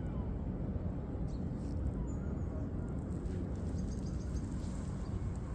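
Steady low rumble of outdoor background noise, with a few faint bird chirps about two seconds in and a quick run of faint high ticks near four seconds.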